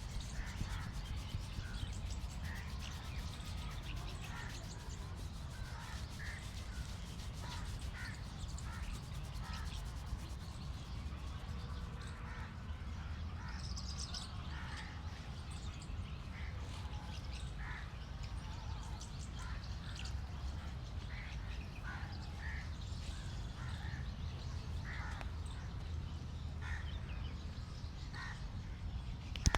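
Crows cawing repeatedly over a steady low rumble.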